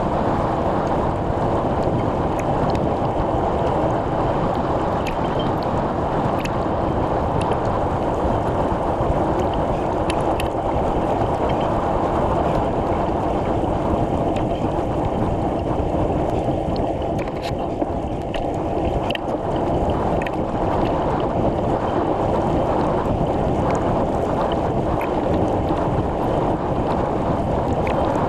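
Steady wind rush on the microphone of a camera carried on a moving bicycle, with scattered faint ticks.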